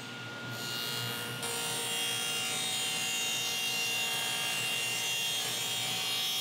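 Delta table saw fitted with a dado stack, cutting a lengthwise dado in a plywood board. The steady whine of the spinning blades gives way about half a second in to a loud cutting hiss as the stack bites into the wood, and the hiss grows fuller about a second and a half in.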